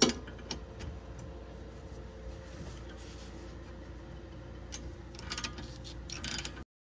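Steel wrenches clinking against a brake caliper bolt, then a ratchet clicking in short quick runs near the end as the top 13 mm caliper bolt is loosened.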